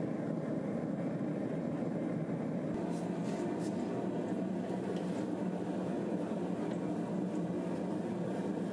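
Steady rushing noise of a gas forge burner running, with a few faint ticks.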